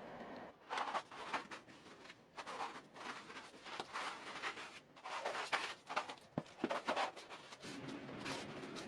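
Paint being scrubbed and scraped by hand off a thin plywood dresser back panel: a run of irregular scratchy strokes, some short and some longer, with a sharp click about six seconds in.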